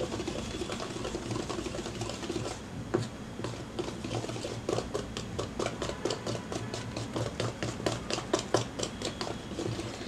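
Wire whisk beating dosa batter in a plastic bowl, with a soft swishing that turns, about three seconds in, into a quick run of light clicks as the wires strike the bowl, several a second. It is beating bubbles into the batter to make it soft.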